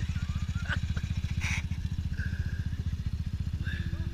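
ATV engine running steadily at low revs, a rapid, even putter.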